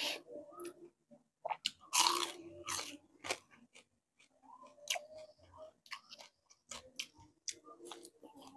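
A person biting and chewing crispy fried bisugo (threadfin bream) with a run of sharp crunches. The loudest crunch comes about two seconds in.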